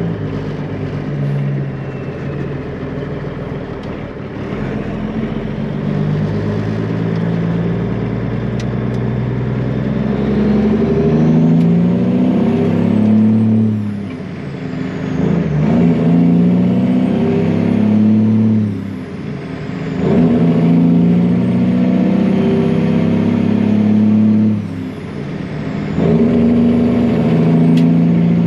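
Truck engine pulling hard and accelerating through the gears: the pitch climbs, drops at each upshift, then climbs again, with about three shifts in the second half.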